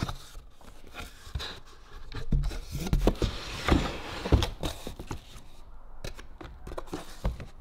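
Cardboard box flaps and plastic wrap being handled: irregular rustling, scraping and knocks, busiest in the middle.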